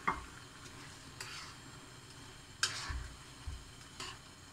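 Spatula stirring chicken pieces through a thick sauce in a wok, scraping the pan in four short strokes over a faint sizzle.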